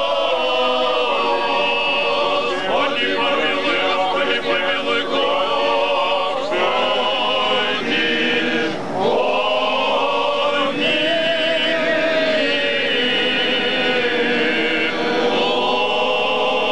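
Choir singing Russian Orthodox liturgical chant: several voices holding chords in long phrases, with short breaks between them.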